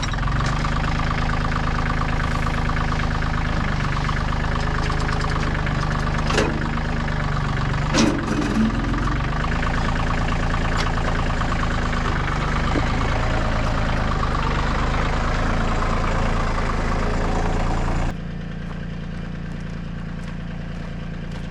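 Tractor engine running steadily, with a couple of sharp knocks about six and eight seconds in. About eighteen seconds in the sound drops suddenly quieter, leaving a lower, steady hum.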